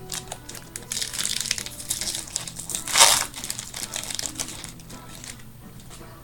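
Plastic trading-card pack wrappers crinkling and being crumpled by hand, a dense crackle for about five seconds with one loud crunch about halfway through.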